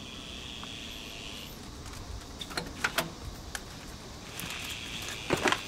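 A few sharp clicks and knocks, the loudest a quick cluster near the end, as someone climbs up into a truck cab. A high hiss comes and goes underneath.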